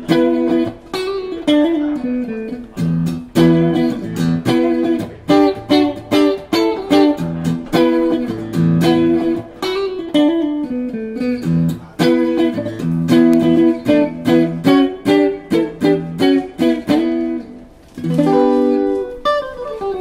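PRS DGT electric guitar played through a Mesa Rectoverb 25 combo amp, plucked with the fingers in phrases of single notes and chords with short gaps between them. Near the end a phrase slides down in pitch.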